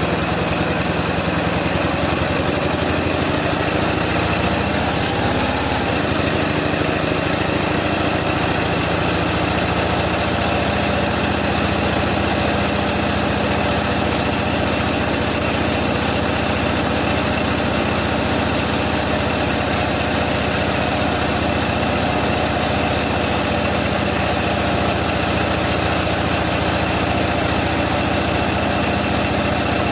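Ural flat-twin motorcycle engine running steadily at idle while the second cylinder's carburettor is adjusted to match the first; the engine note shifts during the first few seconds, then settles.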